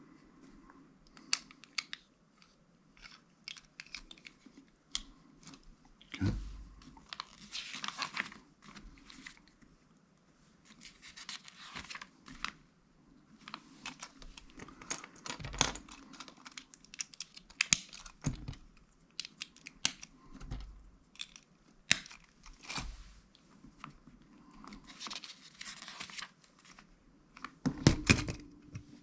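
Small plastic Lego pieces clicking and rattling as they are sifted through and pressed together, with a few dull knocks of the model or pieces set down on the table.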